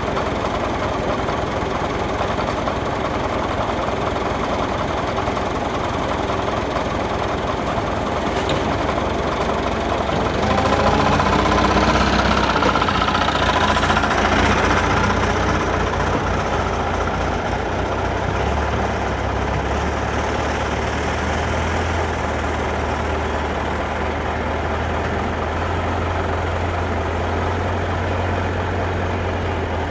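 Heavy diesel engine idling steadily close by, with a Volvo wheel loader driving past about ten seconds in: its engine rises in pitch and grows louder for a few seconds, then settles back to a steady low run.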